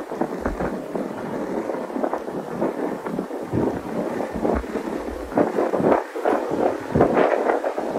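Gusty wind buffeting the microphone: an uneven rushing noise with irregular low rumbles that swell and drop.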